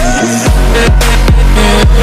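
Electronic dance music, an instrumental stretch with a heavy bass line and a steady kick drum beat.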